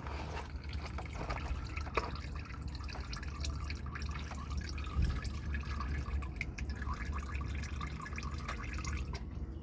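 Engine oil draining from the oil pan into a catch pan: a running trickle of liquid with scattered small drips and splashes.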